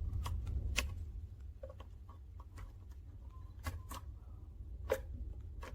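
Scattered light metallic clicks and taps of a thin lockpick and tension wrench working in a five-pin lock cylinder, over a low steady hum.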